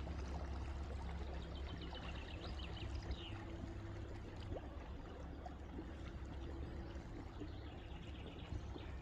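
Water trickling and lapping around a small rowing boat, over a steady low hum. Faint bird chirps come in a couple of seconds in.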